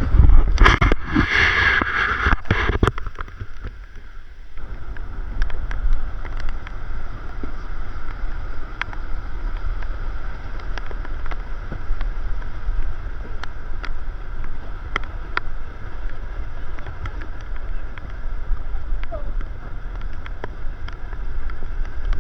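Wind buffeting the microphone as a steady low rumble, with a louder rushing stretch in the first three seconds and a few faint clicks after.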